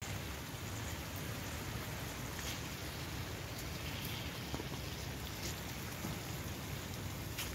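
Chicken pieces sizzling in hot oil in a black steel frying pan: a steady hiss with a few sharp spits.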